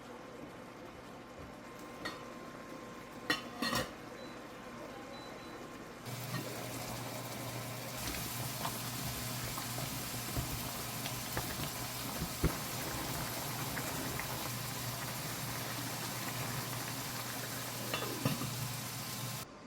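Food frying in a pan: a steady sizzle with a low hum and scattered small utensil clicks, starting about six seconds in after a quieter stretch with a few clinks.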